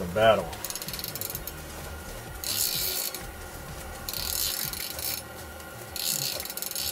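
Spinning reel on a short ice-fishing rod being cranked in spells of about a second, a fast ratcheting whir, as a hooked tullibee (cisco) is reeled up through the ice.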